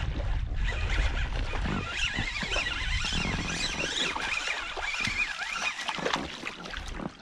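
Dog whining in high, wavering tones for a few seconds. Wind rumbles on the microphone at the start.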